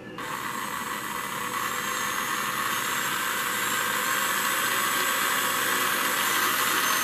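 Carrera Digital 1/32 McLaren 720S GT3 slot car's electric motor running while the car is held in place on the track, a steady high whir that starts just after the beginning and grows gradually louder.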